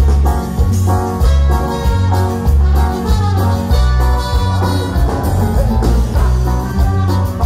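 Live band of electric guitars, keyboards and drums playing dance music through a large concert PA system, with heavy bass on a steady beat.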